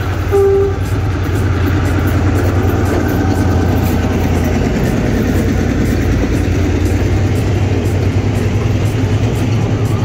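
Diesel-hauled passenger train rolling slowly past at close range: a steady low rumble of locomotive and carriages on the track. A short, loud single tone sounds about half a second in.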